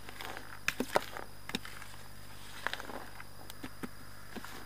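Spoon stirring damp, coated fishing pellets and groundbait in a bait bowl: irregular clicks and scrapes, a few sharper ones about a second in.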